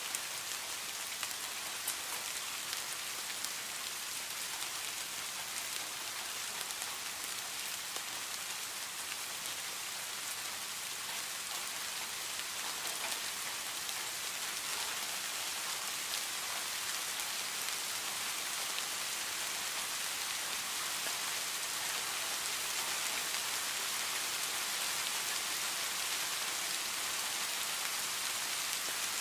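Heavy rain falling steadily on leaves and grass: a dense, even hiss with scattered faint drop ticks, no thunder.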